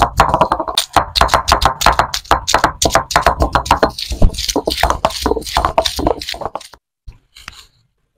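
Stone roller of a grinding stone (ammi) being knocked down onto ginger and garlic on the stone slab to crush them: rapid knocks, about six a second, stopping about seven seconds in.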